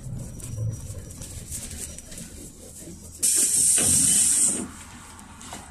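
Low engine and road noise inside a PAZ 32053 bus, cut across about three seconds in by a sudden loud hiss of compressed air released from the bus's air system. The hiss lasts about a second and a half and stops abruptly.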